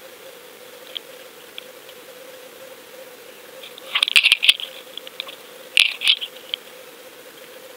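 Underwater camera housing picking up two bursts of rattling clicks about two seconds apart as the camera is jerked about on the line. Under them runs a steady hum and hiss.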